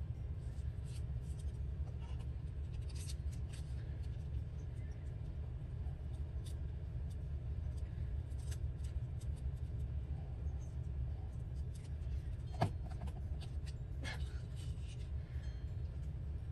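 Steady low background hum with scattered light clicks and rustles of paper scraps being handled and placed, and one sharper tap about two-thirds of the way through.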